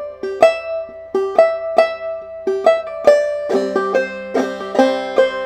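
Banjo played clawhammer style in open C tuning: a syncopated melody phrase of single plucked notes fretted high on the neck, with the thumb dropping onto the fifth string. From about three and a half seconds in, several strings ring together.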